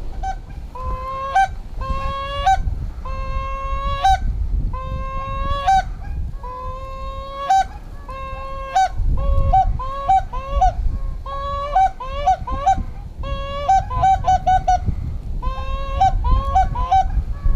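Mallard duck calls blown hard: a long string of loud, clean quacks, sometimes overlapping, with quick runs of short chattering notes near the middle and the end. Wind buffets the microphone underneath.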